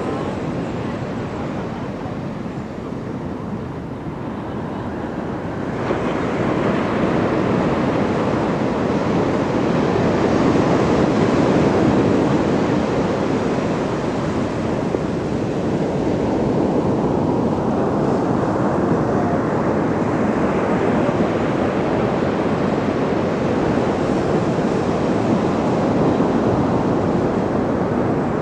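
Ocean surf on a beach: continuous wash of breaking waves, with a wave crashing about six seconds in, its surge swelling and then easing, and another building later on.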